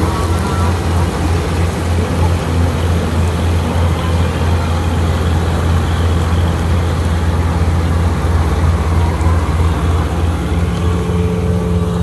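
Syan 998 combine harvester running steadily under load while harvesting: a constant low engine drone with the noise of the cutter and threshing gear over it.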